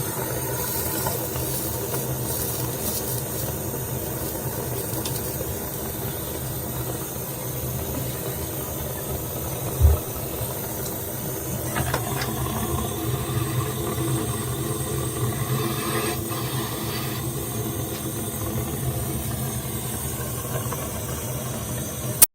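Handheld gas torch flame burning with a steady hiss and low rumble as it heats a copper pipe joint for soldering. There is a brief low thump about ten seconds in, and a sharp click just before the sound cuts off at the end.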